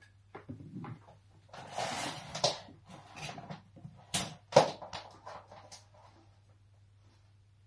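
Rummaging for a power cable and plug below a desk: a rustle lasting about a second, then a handful of sharp clicks and knocks, the loudest about halfway through.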